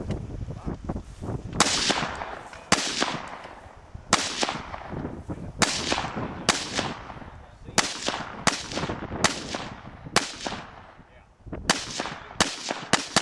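AR-15 carbine firing about a dozen single shots at a steady pace of roughly one a second, a little quicker near the end, each sharp crack trailing off in an echo.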